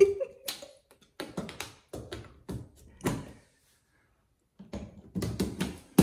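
Irregular sharp clicks and taps of an African grey parrot's beak working the chrome spindle of a toilet paper holder, metal knocking against its mounts, with a quiet gap of about a second after the middle.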